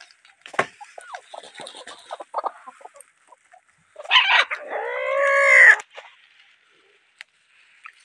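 Hens clucking in short calls, then a rooster crows once about four seconds in, a long call that swells toward its end.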